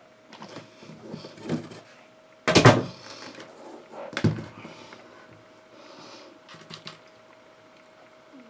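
A few knocks and thumps in a small room, the loudest about two and a half seconds in and another near the middle, with lighter rustling between them, over a faint steady hum.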